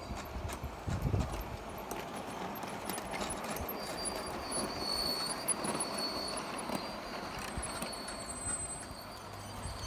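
Large-scale model train rolling past on garden railway track, a steady rumble with its wheels clicking over the rail joints.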